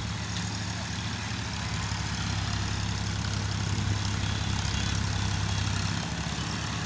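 Diesel tractor engine running steadily as the tractor pulls a laser-guided land leveller over the soil.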